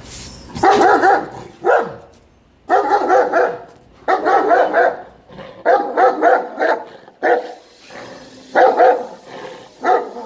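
Caucasian Shepherd dog barking over and over, in runs of several loud barks with short pauses between them.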